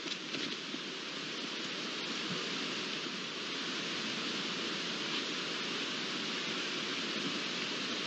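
Steady, even outdoor background hiss on a wildlife webcam's microphone, with no animal calls or other distinct sounds.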